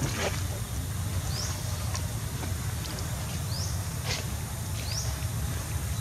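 Outdoor ambience: a steady low rumble, a short high rising chirp repeating about once a second, and a few faint light taps or rustles.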